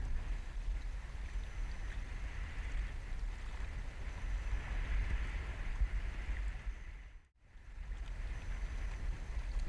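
Wind rumbling on the microphone over choppy lake water lapping. The sound cuts out briefly about seven seconds in.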